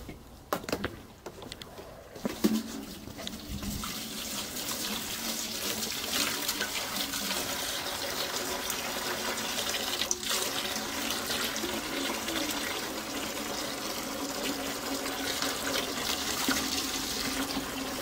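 Water pouring from a garden hose into a metal bucket, a steady running splash that starts about two and a half seconds in, after a few brief knocks.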